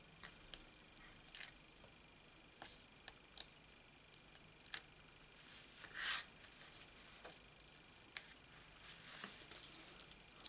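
Foam adhesive dimensionals being peeled from their backing sheet by hand: a scatter of small sharp ticks and light paper crackles, with a longer crackle about six seconds in.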